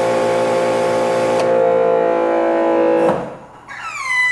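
Giraffe Tools Grandfalls Pro electric pressure washer running under load, spraying through a 3.0 nozzle into a pressure gauge: a steady hum with water hiss. About three seconds in it cuts off when the trigger is let go, and a high whine then falls in pitch and levels off. At this nozzle it builds only about 700 PSI.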